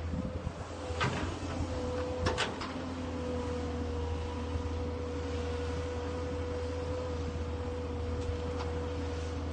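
Caterpillar 320D excavator running steadily, with a constant low engine hum and a steady high whine, broken by two sharp metal clanks in the first few seconds.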